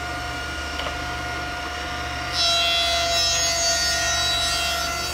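Thickness planer running with a steady motor whine; about two seconds in the cutterhead bites into a walnut board set with epoxy resin and a louder, hissing cutting noise carries on for about three seconds as the board feeds through. It is a light pass taking the resin and wood down flush.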